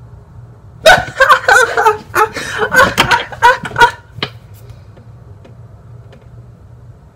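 A man laughing hard in loud, broken bursts for about three seconds, starting about a second in, followed by a single click.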